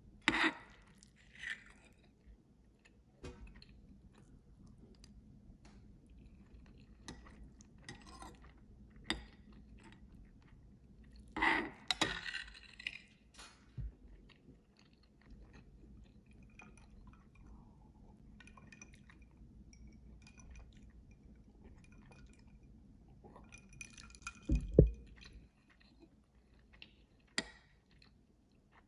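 Someone eating from a dish: chewing, with scattered clinks and taps of utensils against the dish and a few louder clatters.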